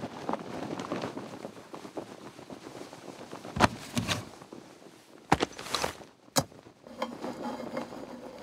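Foley sound effects for an animated scene: continuous rustling with four or five sharp hits near the middle.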